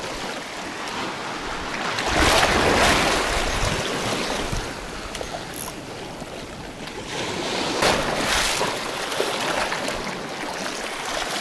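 Sea waves washing in against the rocky shore, surging louder twice, with some wind on the microphone.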